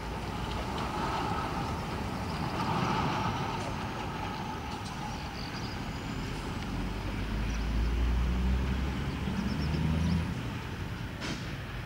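Sulzer diesel engine of a 060-DA (ST43) diesel-electric locomotive working as it approaches hauling a freight train, a steady low rumble. The engine note grows louder in the second half and eases off about ten seconds in, with a sharp click shortly before the end.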